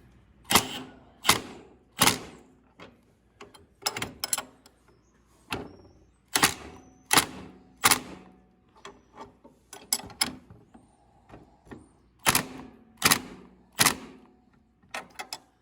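Ratchet wrench clicking and knocking on the bolts of a steering-wheel puller as they are tightened. Sharp metallic clicks come in three groups of three strokes, about three-quarters of a second apart, with smaller clicks between.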